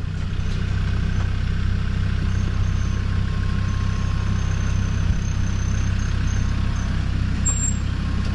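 Off-road 4x4's engine idling steadily, a low even hum.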